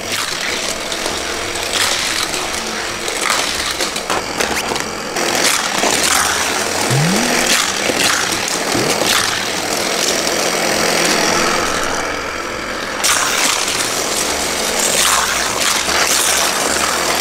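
Motorized toy race-track booster whirring as die-cast toy cars are fed through its spinning wheels and shot out, clattering along the plastic track. A short rising tone about seven seconds in.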